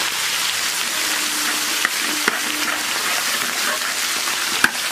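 Food frying in hot oil in a pan, a steady sizzle, with a couple of sharp clicks about two seconds in and near the end.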